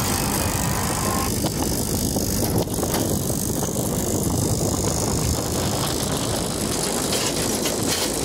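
Off-road motorcycle running along a rough dirt trail, engine noise mixed with wind buffeting and jolts from the rutted ground.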